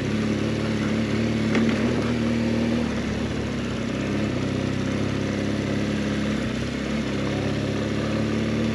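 BMW R 1200 GS boxer-twin engine running at a steady, unchanging pitch while in limp mode, which holds it to low power with no throttle response.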